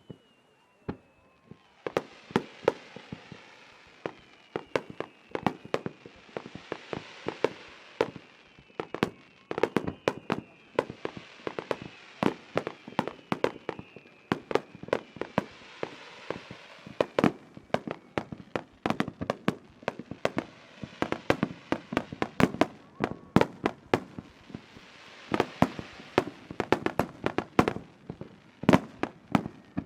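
Fireworks display: a rapid, dense string of shell bursts and bangs starting about a second in, with crackling and faint falling whistles between the bursts.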